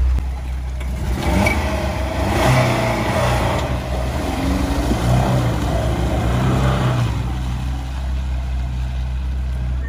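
Lada Niva engine running while under way, its revs rising and falling.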